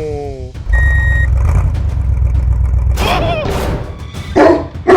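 A deep low rumble lasting about two seconds, with a short high beep about a second in, then a dog barking several times, with music underneath.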